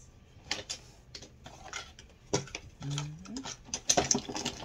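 Blister-carded nail products and a cardboard box being handled and rummaged through: a string of light plastic clicks, taps and crinkles.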